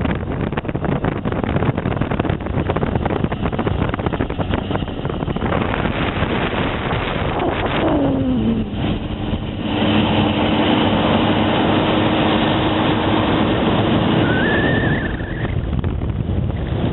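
Motorcycle engine running while riding, with steady wind rush on the microphone; about eight seconds in the engine note falls in pitch and then holds steady.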